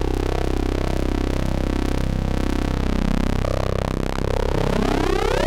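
Eurorack modular synthesizer drone from a Rossum Trident oscillator patch: a buzzy tone rich in overtones whose timbre keeps shifting as the Trident's zing (its internal ring modulation between synced oscillators) is dialled in. Near the end the overtones sweep upward in pitch.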